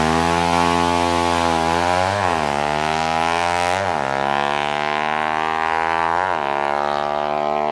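A motor vehicle engine runs loudly at a steady pitch, with three brief sharp rises and falls in pitch: about two seconds in, near four seconds and past six seconds.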